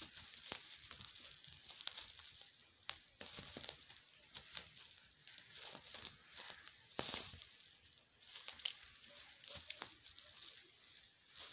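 Kittens scrambling and pouncing on woven plastic sacks, the plastic crinkling and rustling in irregular scratchy bursts, loudest about seven seconds in.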